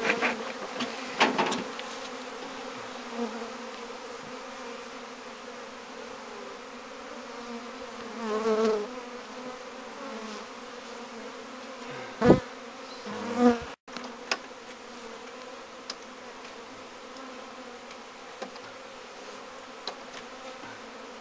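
Honeybees buzzing in a steady hum around an opened hive, with a few brief, louder wavering buzzes near the middle.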